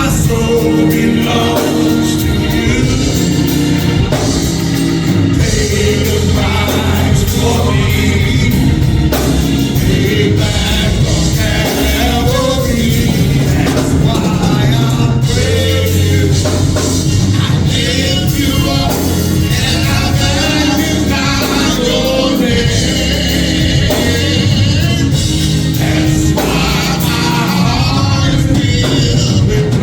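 Gospel praise song with singing over a full live band, steady throughout.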